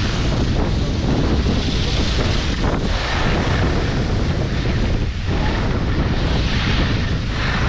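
Wind buffeting the microphone on a windy day as the skier moves downhill: a steady, loud low rumble with a broad rushing hiss.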